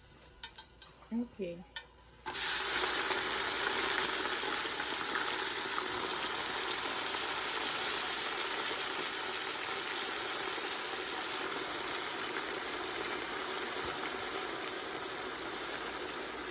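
A few light clicks, then about two seconds in hot oil starts sizzling loudly as a panful of wet, freshly washed green leaves and onion goes in, settling into a steady frying hiss that eases off slowly.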